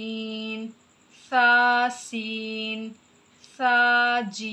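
A woman's voice reciting Arabic letter combinations ("taseen", "saseen") in a drawn-out, sing-song chant. Each syllable is held at a steady pitch for about half a second, with short silences between the words.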